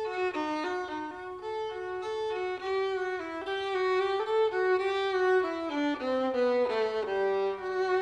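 Solo violin, bowed: a melody of changing notes, with two notes sounding together for a moment near the end.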